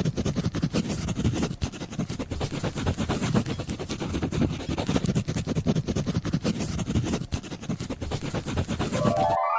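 Felt-tip marker tip drawing across paper: a dense, irregular scratching that cuts off near the end. A quick rising chime begins just as it stops.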